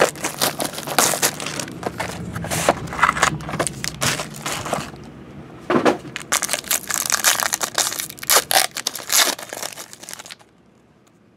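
Foil wrapper of a 2011-12 Limited basketball card pack crinkling and tearing as it is pulled open by hand: a dense run of crackles with one louder crunch about midway, which stops shortly before the end.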